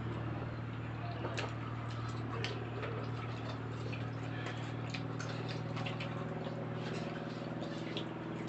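Eating sounds: irregular small clicks and taps from utensils and chewing, several a second, over a steady low hum.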